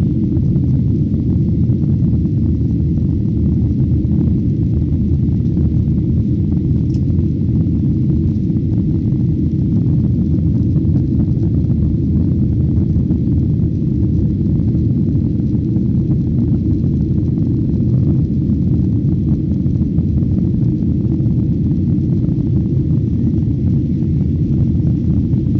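Airliner cabin noise: a steady, even low rumble of engines and airflow, heard from inside the passenger cabin.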